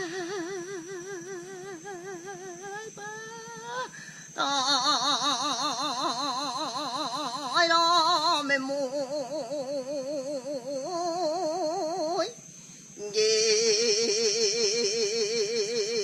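A Mentawai sikerei singing a solo chant in long held notes with a wide, wavering vibrato, pausing for breath about four seconds in and again about three-quarters of the way through.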